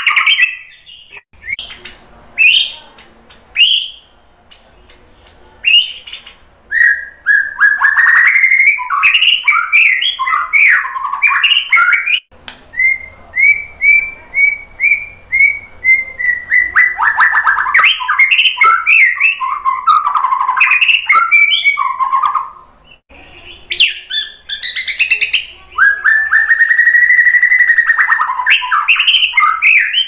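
White-rumped shama (murai batu) singing loudly: varied phrases of fast whistles and trills broken by short pauses. Midway there is a run of evenly repeated notes, and near the end a long, clear held whistle.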